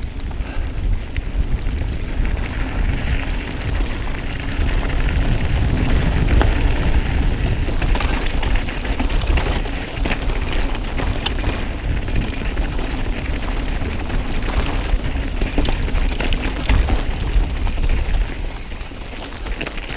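Wind buffeting an action camera's microphone on a moving mountain bike, with scattered clicks and rattles from the bike on a rocky dirt trail. The rumble eases near the end.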